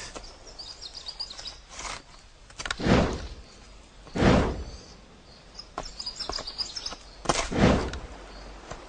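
Forest ambience: faint, high bird chirps, broken three times by a short swishing rustle.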